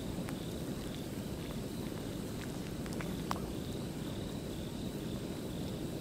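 Wood campfire crackling with scattered small pops, the sharpest about three seconds in, over a steady low rumble, with faint insects chirping.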